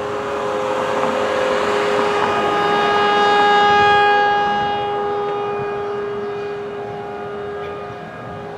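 Federal Thunderbolt 1000 outdoor warning siren sounding a steady tone at full speed. It swells to its loudest about four seconds in, then fades as the rotating horn turns away.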